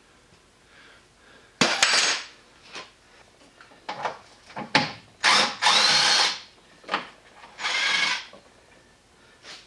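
Cordless drill run in about six short bursts, spinning fasteners out of a pickup truck's headlight mount. The longest burst, about halfway through, lasts about a second.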